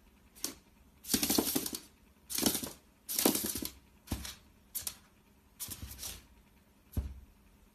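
A bearded dragon's claws scrabbling and tapping on a laminate floor and mirror, in about eight short scratchy bursts.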